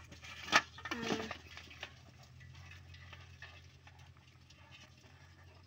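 A live mud crab being broken apart by hand: one sharp crack of shell about half a second in, then a few faint clicks of shell and legs. A brief voice sounds just after the crack, over a low steady hum.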